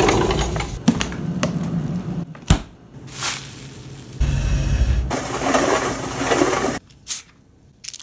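A series of separate raw household sound recordings. A sliding glass door rolls in its track at the start, a sharp knock comes about two and a half seconds in, followed by a hiss. From about four seconds in, a plastic bag is crumpled and crinkled by hand for a couple of seconds, before a short pause.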